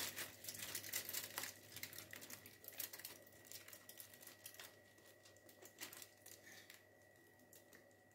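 Crumpled aluminium foil lining a baking tray crinkling and crackling softly as thick cake batter is poured onto it; the crackles thin out after about five seconds.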